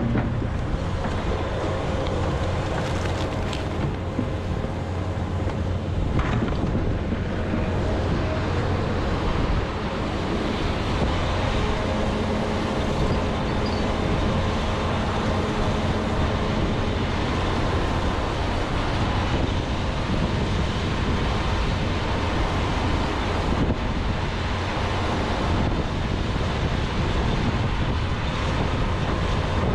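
John Deere 210G excavator's diesel engine running steadily under load with a held whine over it, and a few knocks as the bucket breaks into a frozen peat moss pile. Wind buffets the microphone.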